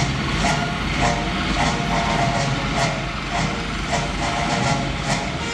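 Steady drone of a propeller plane's engine, with scattered clicks and knocks over it.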